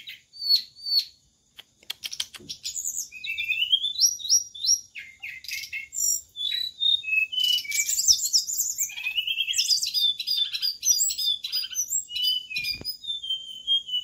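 Caged SRDC songbirds chirping and singing in quick, high runs of notes and short trills, busiest from about three seconds in. A few sharp clicks sound near two seconds in and once near the end.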